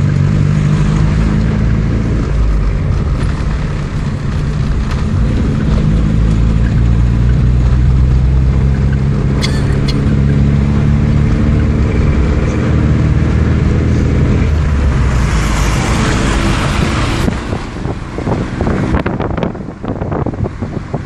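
Car engine and road noise heard from inside the moving car: a steady low drone. About fifteen seconds in a rushing hiss of wind comes in, and wind buffets the microphone near the end.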